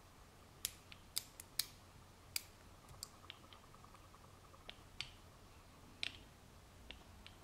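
Faint, irregular small metallic clicks of a lock pick working the wafers inside a KINBAR wafer padlock.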